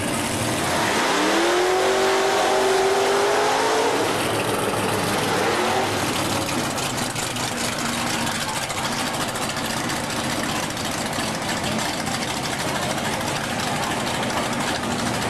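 A motor vehicle's engine running and revving: its pitch climbs about a second in, holds, and falls back a few seconds later, over a steady noisy background.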